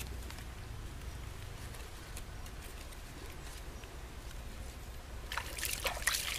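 Eels shifting on a bed of wet leaves: a crackling rustle of leaves about five seconds in, over a low steady rumble.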